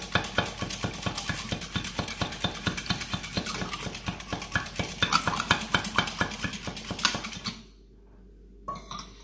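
Metal whisk beating a liquid mixture in a small stainless steel bowl, clinking rapidly against the bowl's sides. The whisking stops about seven and a half seconds in, leaving only a couple of faint taps.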